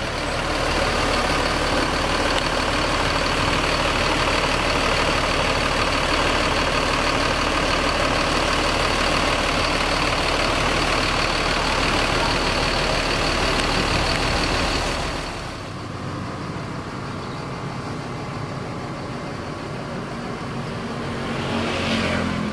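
Diesel engine of a rear-engined coach running with its engine compartment open, loud and steady with a high whine over it, then dropping to a quieter level about fifteen seconds in.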